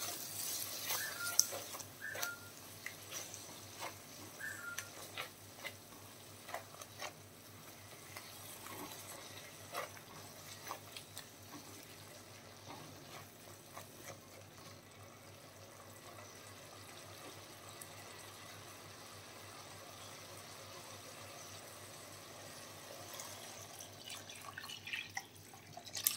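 Liquid in a cooking pan: a hiss for about the first second, then scattered small pops and clicks over a faint steady hiss, typical of rasam coming to a simmer.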